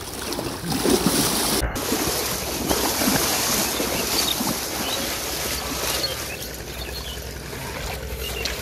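Water splashing and sloshing around a person's legs as he wades quickly through shallow river water. The splashing eases off about six seconds in.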